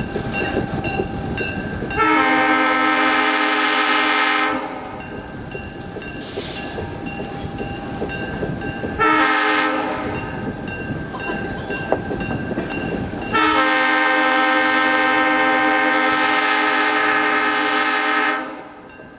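Locomotive air horn on a General Electric-built engine sounding a loud multi-note chord in three blasts: long, short, then a longer one of about five seconds. The train's running rumble and rail noise carry on between the blasts.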